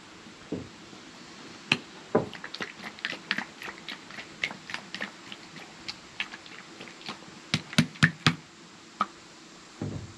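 A plastic squeeze bottle of polishing cream being handled and tipped over a foam polishing pad: a run of irregular small clicks and taps, with a few sharper clicks close together near the end.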